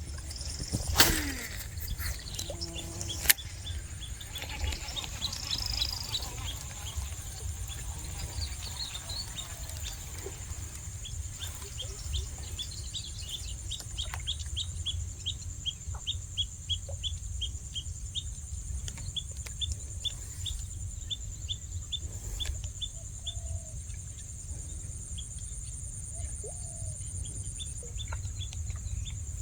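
A bird gives a long run of short, evenly spaced chirps, about two a second, over a steady high-pitched insect drone and a low rumble. Two sharp knocks come in the first few seconds.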